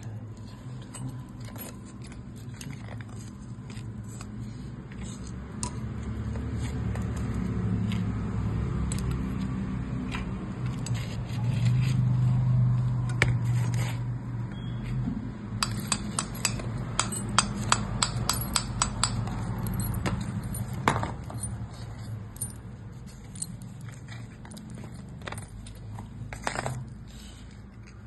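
Light metallic clinks, taps and scrapes as a motorcycle cylinder head and tools are handled, with a quick run of sharp taps about two thirds of the way through. A low hum swells up under them through the middle and fades again.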